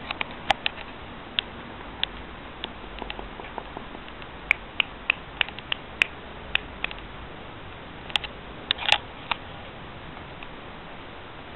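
Irregular sharp clicks and taps, like puppies' claws on a hard floor, coming in scattered groups with a denser cluster near the end, over a steady hiss.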